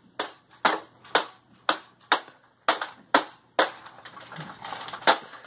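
A run of sharp knocks or claps, about two a second for the first three and a half seconds, then one more near the end.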